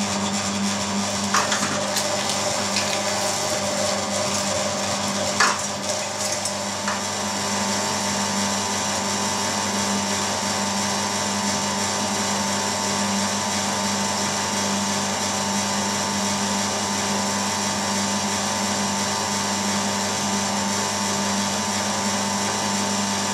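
Electric meat grinder's motor running steadily under load as it grinds beef through its finest plate: a constant hum with a whine over it. A couple of short knocks in the first six seconds as the meat is pushed down into the feed.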